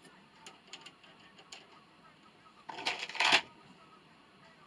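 Sharp mechanical clicks from ammunition-reloading work: a few light single clicks, then a short, louder burst of clattering clicks about three seconds in.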